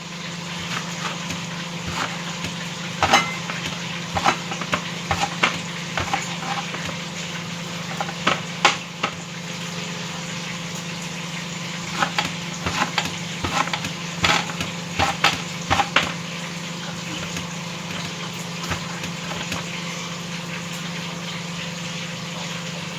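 Tilapia frying in hot oil with a steady sizzle, under a steady low hum. A knife chops lettuce on a board in irregular knocks, thinning out after about two-thirds of the way through.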